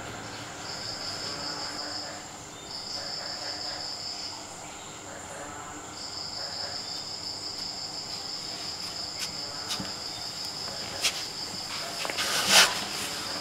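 Crickets chirping in a fast pulsing trill that stops and restarts a few times, over a steady high whine. A few sharp clicks come in the second half, and a brief, louder clatter near the end.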